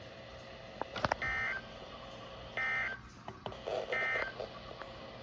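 Three short bursts of the Emergency Alert System's SAME digital header, a two-tone electronic data screech, about a second and a half apart: the coded header that opens a new alert.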